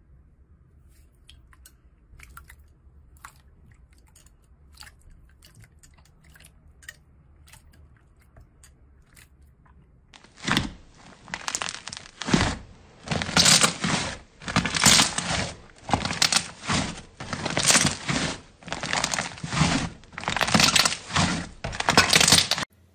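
A hand squeezing and kneading a large lump of thick yellow slime: loud crackling squelches in repeated squeezes about once a second, starting about ten seconds in and stopping suddenly near the end. Before that, only faint sparse clicks from a hand pressing into clear blue water-like slime.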